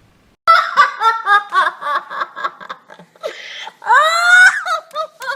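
A parrot imitating laughter: a quick run of short, pitched 'ha-ha' notes starting about half a second in, then a louder, drawn-out call that rises in pitch about four seconds in, followed by a few short clicks.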